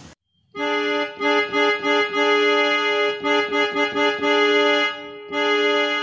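Yamaha electronic keyboard playing a held multi-note chord that imitates the horn of an Indian Railways WDG-3A diesel locomotive. The chord is sounded as a run of short blasts with brief breaks, then a longer blast near the end.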